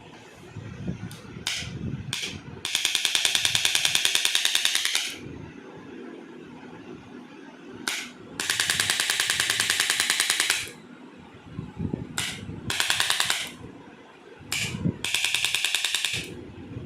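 Handheld percussion instrument of the kind used for chiropractic adjustment firing in rapid runs of clicking pulses, about ten a second for two to three seconds at a time, three times, with single sharp clicks in between.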